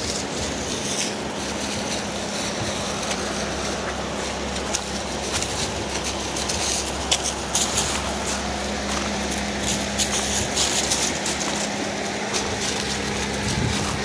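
Mountain creek rushing steadily over rocks, with a steady low hum underneath and scattered light crackles.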